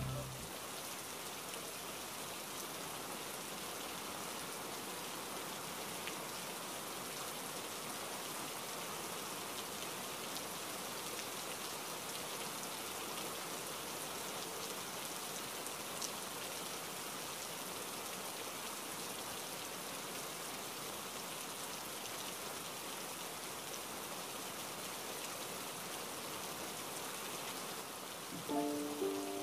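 Steady rain falling, an even hiss that holds at one level throughout. A few soft musical notes come in about a second before the end.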